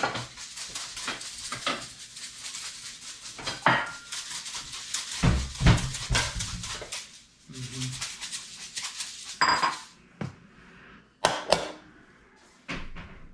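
Kitchen clatter of dishes and utensils being handled, with a string of clicks and knocks and a few heavier thumps; a ceramic bowl is handled and set down on a stone countertop.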